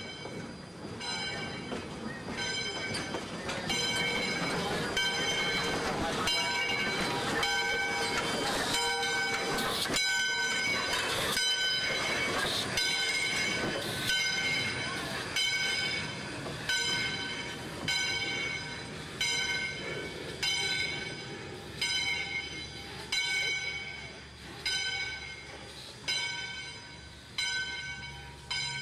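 Aberdeen & Rockfish No. 40 steam locomotive rolling past with its bell ringing steadily, about one stroke every three-quarters of a second. The rumble of the engine and its wheels swells as it comes close and fades as it draws away, while the bell strokes carry on.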